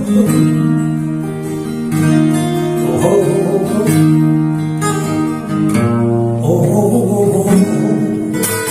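Acoustic guitar playing solo: strummed chords that ring out, with a fresh strum every second or so and a few picked notes between them.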